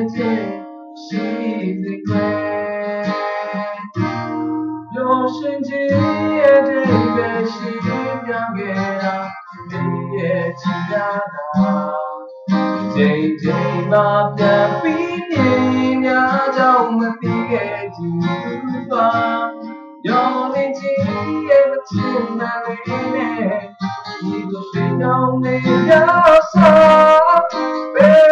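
Steel-string acoustic guitar being played: chords and a melody over bass notes, with short pauses between phrases.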